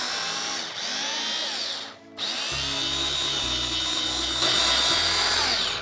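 Electric hand blender with a chopper bowl whirring as its blades chop tomatoes, garlic and shallots for a sambal. It runs in two pulses: a short stop about two seconds in, then a longer run that ends near the end.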